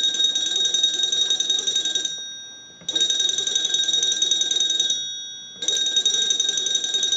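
Small test bell ringing rapidly in three bursts of about two seconds each, driven by a hand-cranked magneto from an American Electric wooden wall crank telephone. The ringing shows that the repaired magneto now produces enough voltage to ring a bell.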